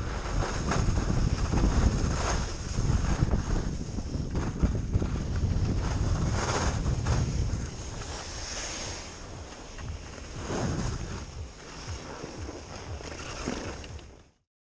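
Wind buffeting the microphone of a camera worn by a skier skiing downhill, with skis scraping and hissing over the packed snow. The rush is loudest for about the first eight seconds, drops as the skier slows, and cuts off suddenly just before the end.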